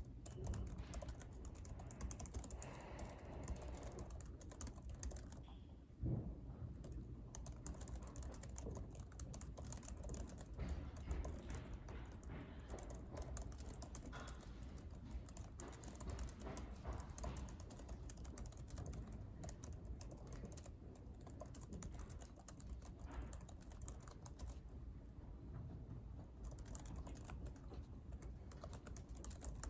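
Typing on a computer keyboard: quick, irregular key clicks run on continuously over a steady low room hum, with one heavier thump about six seconds in.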